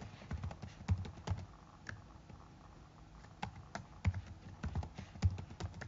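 Computer keyboard being typed on: irregular runs of soft keystrokes with short pauses between them.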